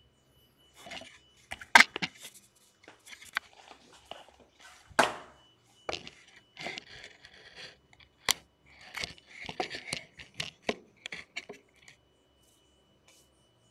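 Handling noise from a camera and its flexible-leg tripod being repositioned by hand close to the microphone: irregular clicks, knocks and scrapes, the sharpest near the start, about five seconds in and about eight seconds in. A faint steady high whine sits underneath.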